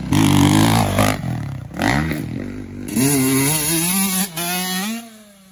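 Small youth dirt bike's engine revving hard under acceleration, its pitch climbing in steps before it falls away near the end.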